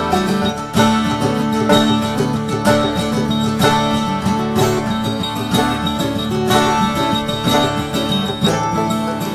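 Acoustic string-band music in a bluegrass style: a Taylor Big Baby guitar and a Gold Tone tenor banjo picking a tune over a steady beat.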